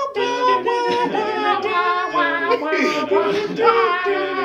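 Several voices singing a cappella in harmony, with a low bass part moving underneath.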